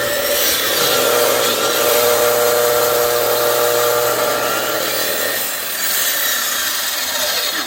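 Electric circular cutting saw running and cutting through a firewood log: a loud, steady motor whine under the rasp of the blade biting into the wood, with a slight change in the sound about five and a half seconds in.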